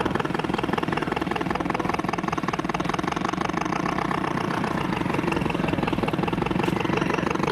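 An engine running steadily at a constant speed, with a fast, even pulsing beat.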